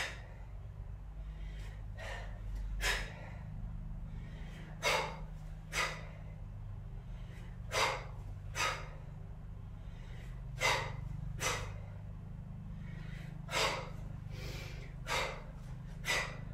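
A woman's sharp, forceful breaths, the hissing power breathing used in kettlebell swings and snatches. They come in pairs about a second apart, repeating about every three seconds, over a steady low hum.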